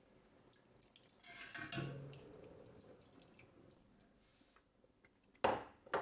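A metal ladle stirring and lifting soup in a stainless steel pot: a liquid slosh and pour about a second in, then two sharp clinks of the ladle against the pot near the end.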